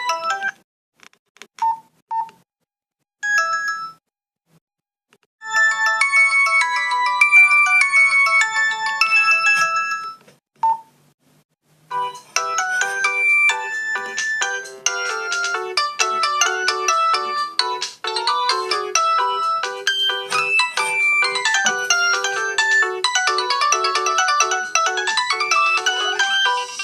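Samsung polyphonic MIDI ringtones played one after another through a Nokia 112 phone's speaker. First come a few short separate tones, then a brief melody. After a short pause a longer, busier multi-note tune follows, with runs of notes sweeping up and down.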